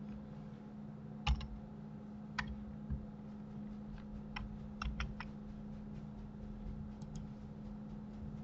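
Scattered clicks of a computer keyboard and mouse, about nine irregular presses with the loudest a little over a second in and a quick cluster around the middle, over a steady low electrical hum.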